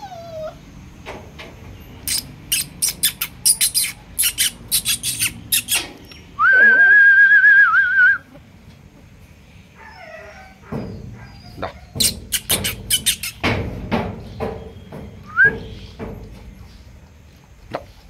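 Quick runs of sharp clicking sounds, like those made to call a puppy, with one steady high whistle lasting about two seconds in between.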